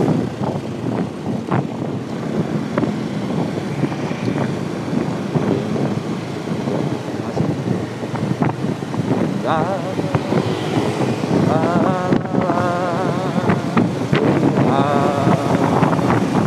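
Wind rushing over the microphone and road noise from riding a motorcycle in traffic. About nine seconds in, a melody with heavy vibrato comes in over it, and it returns near the end.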